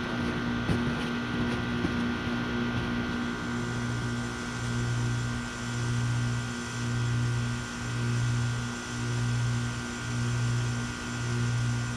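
Heat pump outdoor unit running: a steady droning hum that, from about four seconds in, swells and fades roughly once a second.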